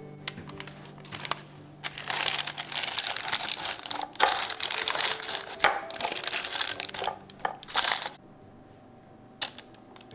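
Parchment paper crinkling and crackling as it is handled and pressed into a container to line it, loudest from about two to eight seconds in, with a few single crackles before and after.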